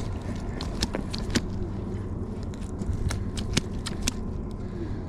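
Steady low wind rumble on the microphone, with about a dozen sharp clicks and taps scattered through it, mostly in the first four seconds.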